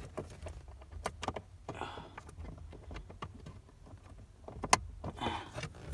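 Handling noise from plastic car interior trim being fitted back: scattered clicks and taps with brief rustling and scraping, and a sharper knock a little over four and a half seconds in.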